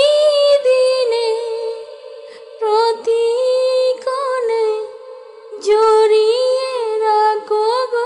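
A woman's voice singing a slow Bengali ghazal melody in three long phrases, the notes held and wavering with vibrato, sliding between pitches, with short breaks between phrases.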